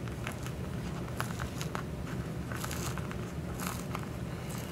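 Vinyl-covered plastic cookie wrapper crinkling and crackling in scattered sharp clicks as it is handled and peeled up from the fabric ironing board cover it has stuck to, over a steady low hum.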